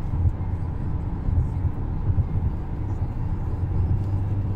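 Steady low road and engine rumble heard inside the cabin of a car driving at highway speed.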